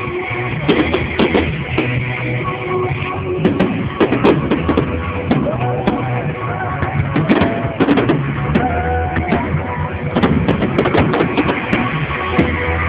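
Rock music with a drum kit and guitar playing steadily.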